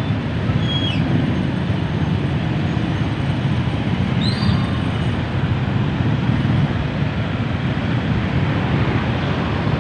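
Dense, slow-moving road traffic: a steady rumble of many vehicle engines and tyres, with two brief high squeaks, about a second in and about four seconds in.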